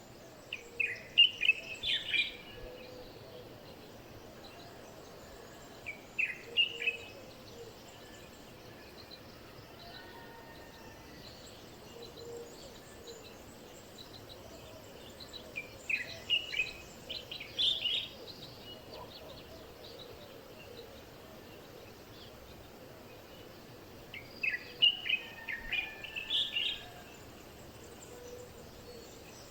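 Birds calling in four short bouts of quick chirps and trills, over a faint steady background.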